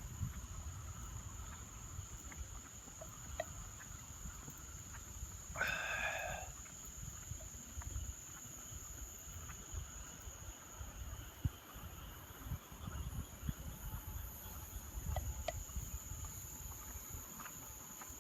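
Night insects trilling in one steady, high, unbroken tone, with a single short pitched call about six seconds in. A low uneven rumble runs underneath.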